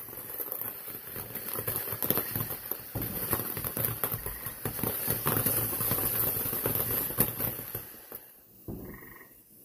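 Ground fountain firework spraying sparks, crackling with many small rapid pops over a hiss, dying down about eight seconds in.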